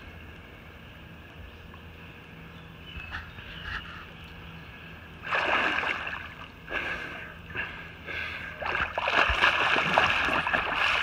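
Water splashing and churning in loud, irregular bursts as people wrestle in chest-deep lake water while hand-grabbing a catfish. It starts about five seconds in, after a steady faint low hum, and is heaviest near the end.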